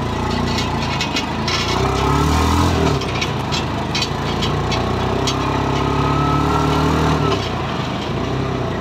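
Motorcycle engine running close by. It revs up and down about two seconds in, runs steadily, then drops away about seven seconds in, with scattered clicks and rattles over street traffic noise.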